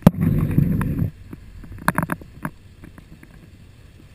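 Speedboat running at low speed: a loud rush of wind and water for about the first second, then a lower steady hum of motor and water with a few sharp knocks.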